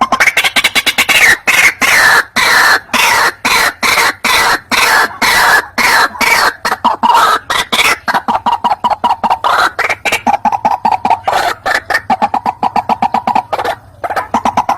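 White-breasted waterhen calling: a long, loud string of rapid harsh notes repeated several times a second, the pitch settling lower about halfway through. This is the bird's territorial call as used for luring.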